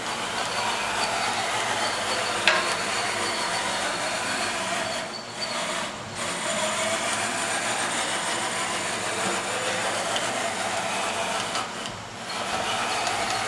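Fadal VMC-4020 CNC vertical machining center running, a steady mechanical noise with a sharp click about two and a half seconds in and brief dips in level twice.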